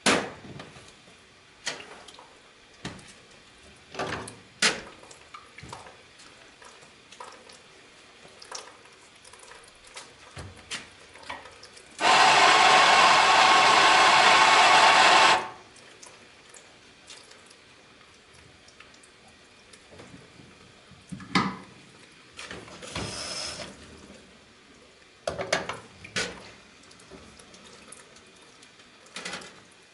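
An electric coffee grinder runs steadily for about three and a half seconds, starting and stopping abruptly, grinding a dose into the portafilter of a lever espresso machine. Around it come scattered sharp knocks and clicks of metal and crockery as the portafilter and cups are handled.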